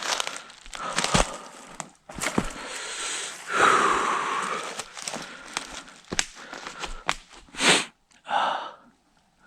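Dry leaves and brush crunching and rustling, with many sharp twig snaps, as someone forces a way through on foot. Short breathy puffs come near the end.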